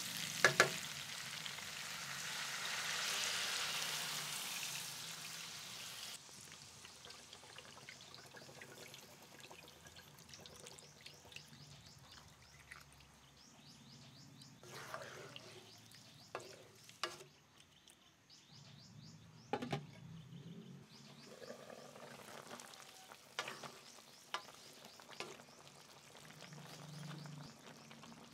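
Pork pieces sizzling in a stainless steel wok, with sharp clanks of a spatula stirring them near the start; the sizzle dies down about six seconds in. After that, liquid is poured in from a can and scattered spoon and utensil clinks follow.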